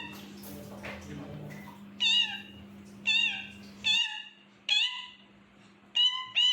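Indian ringneck parrot giving a series of six short, clear calls, each bending up and then down in pitch, about one a second, the last two close together.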